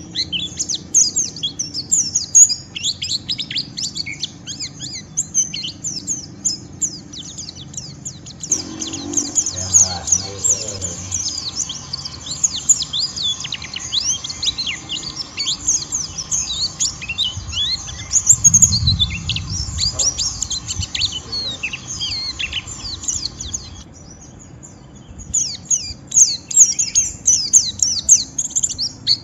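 A white-eye (pleci) giving its rough, rapid twittering song ('ngeriwik kasar'), a dense stream of short, high chirps and flicks. The twittering pauses briefly about three-quarters of the way through, then starts again.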